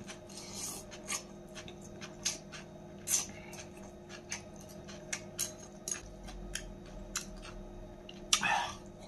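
Close-up eating sounds: a man slurping and chewing a cold-dressed salad of dried tofu strips and noodles, with irregular wet smacks and clicks and one longer, louder slurp near the end. A faint steady hum sits underneath.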